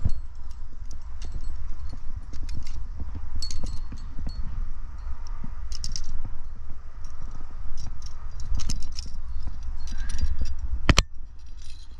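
Climbing rack of metal carabiners and cams clinking and jangling on a harness as a climber moves up a granite crack, over a steady low rumble. Near the end comes a single sharp click, the loudest sound, as the rope is clipped into a quickdraw.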